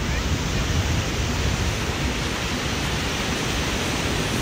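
Steady rush of ocean surf and wind.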